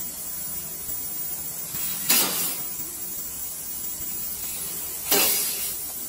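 Pressurised gas hissing out of a refrigerator's copper capillary tube as it is blown through to clean it: two sudden loud bursts about three seconds apart, each fading within a second, over a fainter steady hiss.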